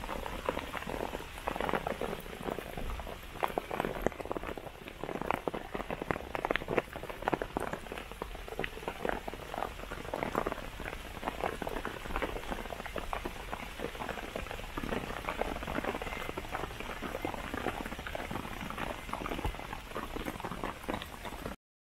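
Rain pattering on a Panda VC canvas tarp, a dense, irregular stream of drops hitting the taut fabric. It cuts off abruptly near the end.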